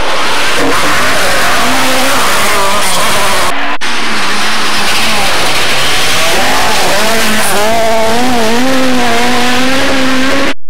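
Rally car engines running flat out on a gravel forest stage, the pitch rising and falling as the drivers rev and change gear, over a rush of tyre and gravel noise. About a third of the way in there is an abrupt switch to a second car.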